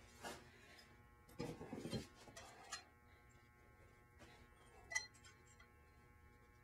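Faint clinks and knocks of a disc brake caliper and its metal parts being handled as it is lifted off the rotor, with a short clatter about a second and a half in and one sharp click about five seconds in.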